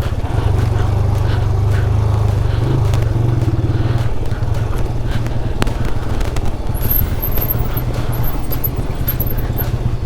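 Motorcycle engine running steadily at low revs, with scattered short clicks over it.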